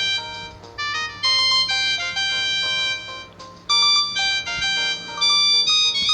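Samsung GT-E2120 mobile phone ringtone: a synthesized melody of short, bright electronic notes, with a brief pause about halfway through before the tune picks up again.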